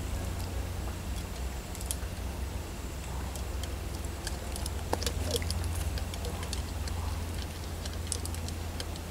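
Steady low rumble of wind on the microphone, with scattered faint clicks and ticks.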